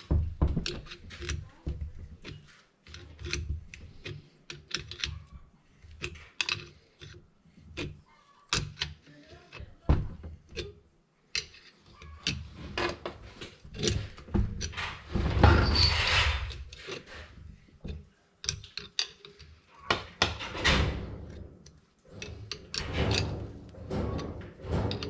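Wrench clinking and clanking on the bolts and steel casing of a Tofaş four-speed gearbox, with knocks and scrapes of metal on a metal workbench; a louder, longer scraping rattle comes a little past halfway.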